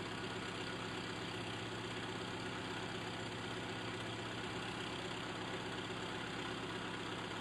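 1970 BMW 2002's carburetted 2.0-litre four-cylinder engine idling steadily.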